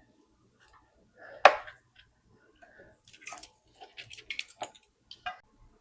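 Wiring harness and plastic connectors being handled and moved aside in an engine bay. One sharp click comes about a second and a half in, then a scatter of lighter clicks and taps.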